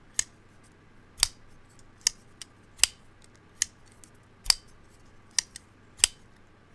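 Vosteed Raccoon button-lock folding knife flicked open and dropped shut over and over on its ceramic bearings: about ten sharp metallic snaps, roughly one every three-quarters of a second, as the blade locks open and slams closed. The blade releases freely with no lock stick.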